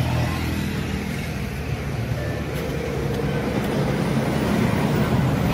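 Road traffic: passing motor vehicles, including a scooter, making a steady low rumble that grows a little louder toward the end.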